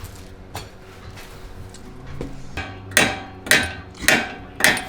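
Hammer blows on the car's steel suspension assembly to knock it free: a few light clicks, then four sharp ringing metal strikes in quick succession, a little over half a second apart.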